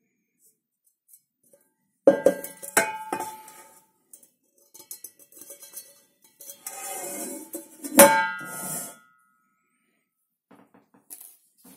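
Enamelled steel pot clanking and ringing as it is handled: a cluster of knocks about two seconds in, scraping a few seconds later, and one loud clank about eight seconds in whose ring dies away.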